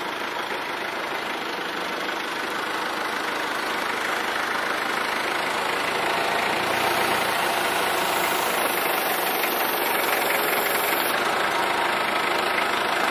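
A vehicle's engine running steadily under road noise, slowly growing louder.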